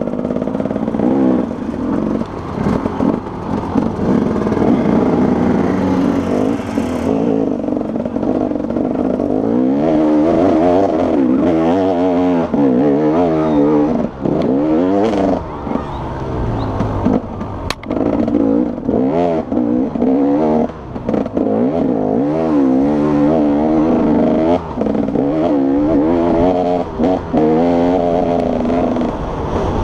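Enduro motorcycle engine heard close up from on the bike, revving up and down over and over as the throttle is worked along a rough trail, with a few sharp knocks.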